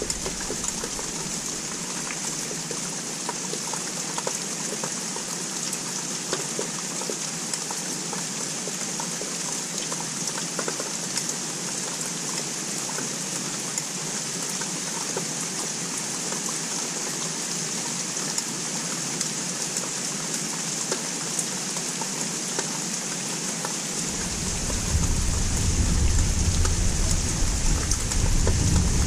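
Steady rain falling, with many small drop ticks. About 24 s in, a low rumble of distant thunder starts and grows louder.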